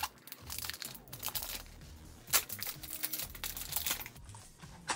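Crinkly plastic wrapper of a blind-bag toy packet being pulled open and handled, with irregular crackles and one sharper rip about halfway through.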